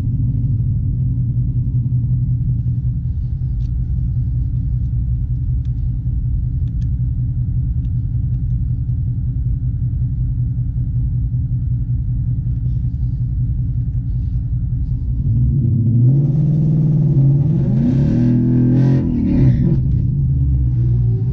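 A Ford Mustang GT's 5.0 Coyote V8 idles with a deep, steady rumble. About fifteen seconds in, it is revved hard, and its pitch climbs and drops several times in quick succession.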